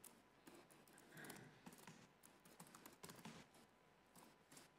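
Faint typing on a computer keyboard: irregular key clicks with short pauses between runs.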